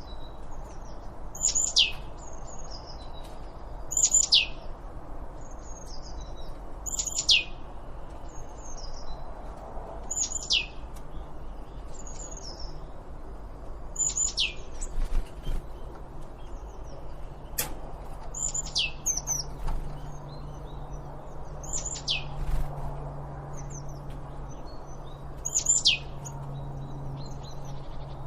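Birds singing: one loud, high whistled note that sweeps sharply downward, repeated about every three to four seconds, with softer chirps and twitters between.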